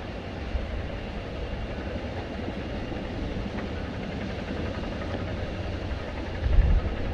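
Steady low rumble of jet airliner engines, with a brief low swell about six and a half seconds in.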